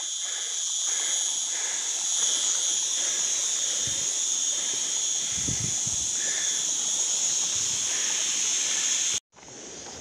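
A steady, high-pitched chorus of insects, with a few soft footstep thumps on a dirt path. About nine seconds in, the sound cuts off abruptly and comes back much quieter.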